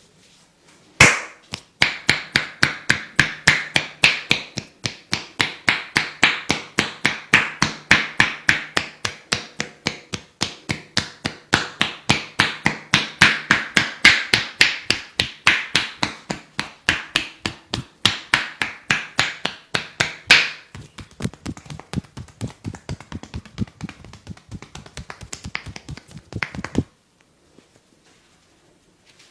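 Percussive massage: hands slapping a body in quick, even strokes, about three a second. The strokes go on more softly for the last several seconds before stopping.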